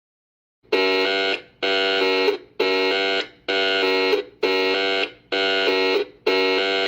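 Electronic alarm buzzer sounding in a run of harsh, even bursts, about one a second, each lasting most of a second. It starts after a brief silence.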